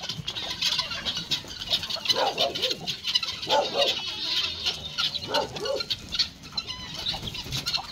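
Mixed flock of helmeted guinea fowl and chickens calling as they come out of the coop: a run of short clucking calls, with a busy chatter of quick high chirps.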